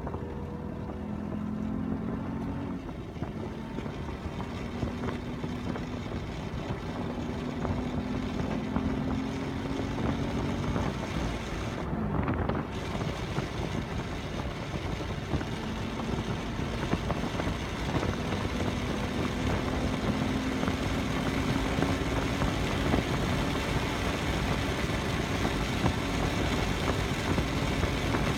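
Race car engines running on a track, with a steady noise behind them. Their pitch climbs slowly in several long pulls that break off and start again.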